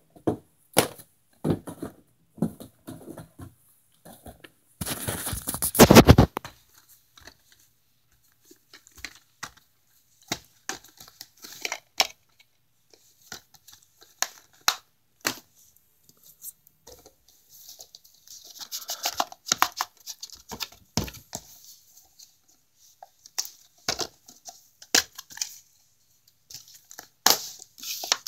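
Plastic DVD cases being handled and set down on carpet: scattered clicks and knocks. About five seconds in there is a longer, louder noise of handling.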